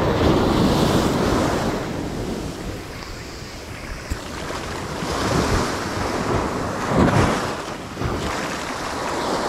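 Small surf waves breaking and washing up the sand close by, with wind buffeting the microphone. The wash swells near the start and again about five to seven seconds in.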